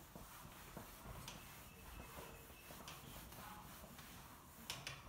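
Faint rubbing of a duster wiped across a whiteboard, with a few short knocks as it moves.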